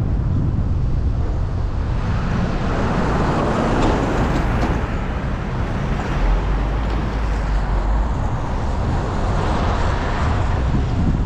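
Wind buffeting the microphone of a GoPro riding on a moving vehicle, over steady road noise, swelling and easing twice.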